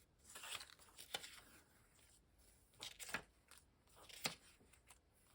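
Faint paper handling: pages of a printed catalog being leafed through and pictures pulled out, a few short rustles and crackles.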